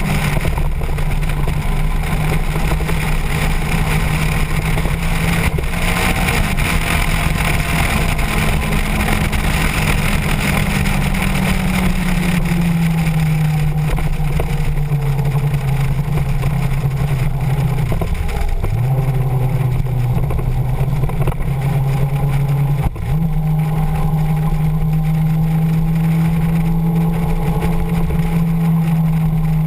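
Motorcycle engine running at road speed under steady wind rush. The engine note eases lower about twelve seconds in, dips sharply twice in the second half, then settles back to a steady drone.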